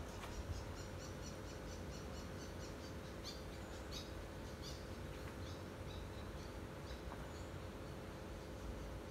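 Birds chirping in quick repeated series, about four high chirps a second at first, then more scattered, over a faint steady low rumble.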